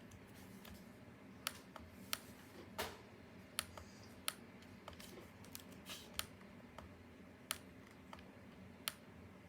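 Scattered, irregular clicks of computer keys or buttons, about a dozen spread unevenly through the stretch, all faint. A faint steady low hum lies underneath.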